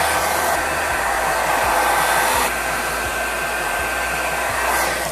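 Hand-held hair dryer running: a steady rush of blown air with a thin, high whine, which stops abruptly near the end.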